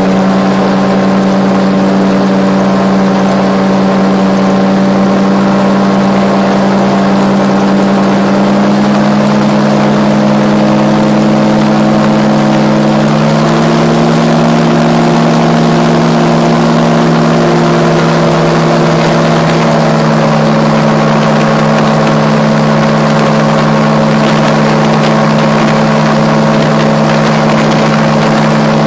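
RAF 2000 gyroplane's engine and pusher propeller running steadily in flight. The pitch steps up slightly about halfway through and eases back down near the end.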